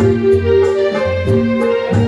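Live band music with no singing: a melody of held notes over a pulsing bass line, with light high ticks keeping the beat.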